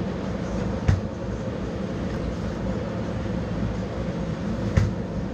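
Steady low rumble of background noise, with two sharp knocks about four seconds apart as a melon is handled and set down on a cutting board in a steel tray.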